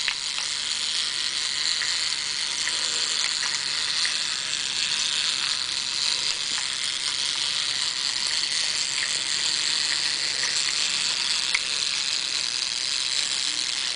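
Wind-up clockwork motor of a small toy magnetic fishing game running steadily, a fast mechanical whirr of its gears turning the fish pond. A few faint plastic clicks sound over it.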